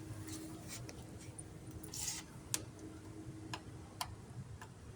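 Faint scattered clicks and one short rustle, like small handling noises, over a low steady hum that fades out near the end.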